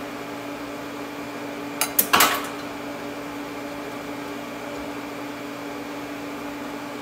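Steady machine hum from the welding setup, with a brief cluster of sharp metallic clacks about two seconds in as a small clamp is handled by the tube on the positioner.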